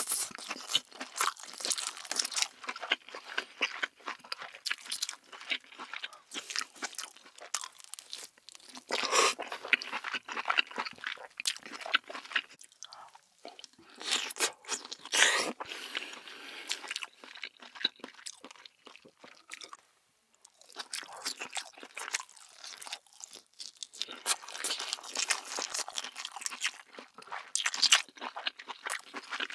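Close-miked eating of cooked king crab legs: the meat is sucked from the shell and chewed in a dense run of wet clicks and crackles, with a few longer slurping stretches, one about nine seconds in and one around the middle, and a brief lull soon after.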